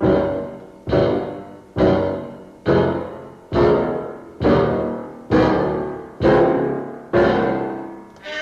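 Cartoon score: a piano pounds out the same heavy chord about once a second, nine times, each strike left to ring and die away. A fuller orchestral passage comes in right at the end.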